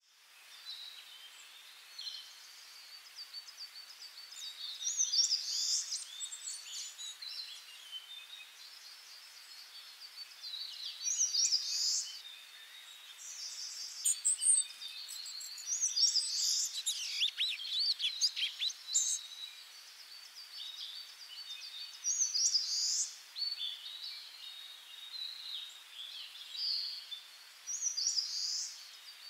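Birdsong: several birds chirping and trilling in high, short phrases that come back every few seconds, busiest around the middle, over a faint steady hiss.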